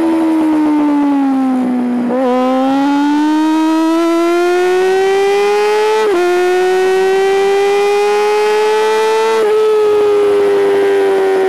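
Honda CBR400RR NC29 inline-four engine at high revs, heard onboard: the note sinks for the first two seconds as the bike slows through a corner, then climbs steadily as it accelerates out, with two upshifts (sudden drops in pitch) about six and nine and a half seconds in, the revs rising again after each.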